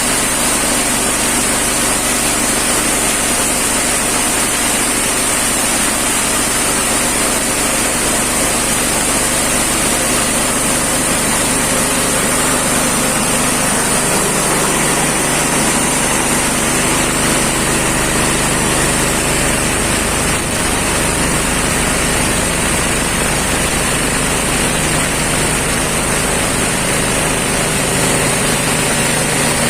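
A livestock feed chopper (chaff cutter) running steadily on its small engine, a loud continuous machine drone with a high whine over it; the low hum shifts partway through.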